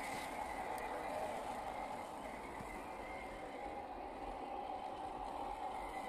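A 1/10-scale RC crawler's electric motor and gears whining steadily as it crawls over sandy mounds.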